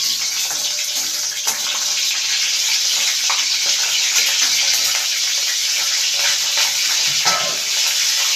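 Dried red chillies, bay leaves and whole garam masala sizzling in hot refined oil in a kadai: a steady hiss, with a few light scrapes and taps of the metal spatula.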